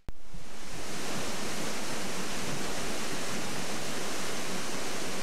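Waterfall rushing steadily, heard up close; the sound cuts in suddenly at the start.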